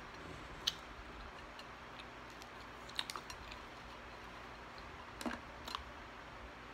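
Quiet eating sounds: a few scattered small clicks and taps of a knife working on a plate of French fries, alongside chewing.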